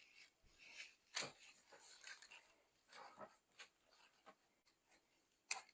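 Near silence with faint kitchen handling sounds as bread dough is shaped into rolls: soft rustles and light taps, with a sharper knock about a second in and another near the end.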